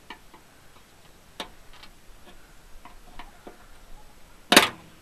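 Plastic wiring-harness clips in a Jeep Wrangler JK half door being pried out with a small flat-head screwdriver. Scattered light clicks and ticks of the screwdriver and clip tabs against the door, then one sharp, much louder click about four and a half seconds in.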